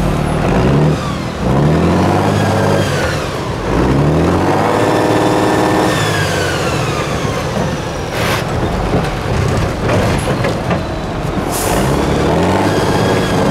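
Diesel engine of an 8x8 Tatra trial truck revving up and down repeatedly as it climbs over rocky ground under load. Two short bursts of air hiss, about eight seconds in and again a few seconds later.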